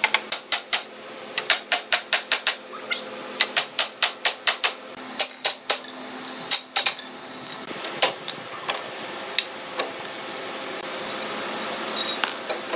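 Hammering on wood in a workshop: a fast run of sharp strikes, about four a second, for the first several seconds, then a few slower single blows.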